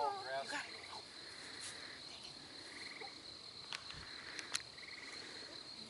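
Evening chorus of insects and frogs in a summer field: a steady high-pitched insect drone, with short trills repeated a few times over it.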